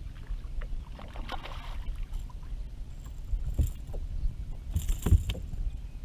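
Low, steady rumble of wind on the microphone and water lapping against a boat's hull, with a few short knocks on the boat about three and a half and five seconds in.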